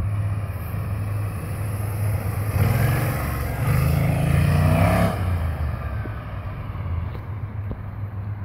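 BMW C600 Sport maxi-scooter's parallel-twin engine passing by. The engine note swells and climbs in pitch as it comes close about three to five seconds in, then fades as the scooter rides away.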